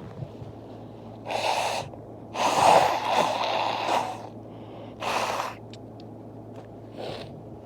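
A person blowing their nose: a short breath in, then a long forceful blow lasting nearly two seconds, a shorter second blow, and a faint sniff near the end.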